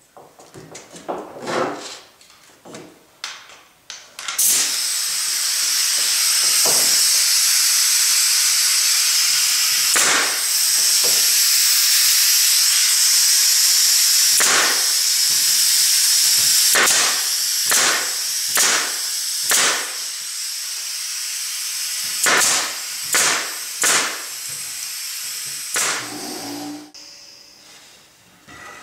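Pneumatic brad nailer driving inch-and-a-quarter brads into pine, about a dozen sharp shots, over a loud steady hiss of compressed air. The hiss starts abruptly with a click about four seconds in and cuts off near the end; light knocks of wood being handled come before it.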